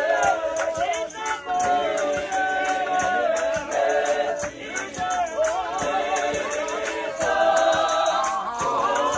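A mixed group of men and women singing a gospel song in harmony without instruments, with hand claps keeping a steady beat.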